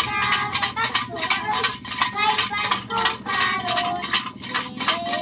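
Children singing a Christmas carol to a steady beat of clinking, rattling percussion shaken or struck in their hands.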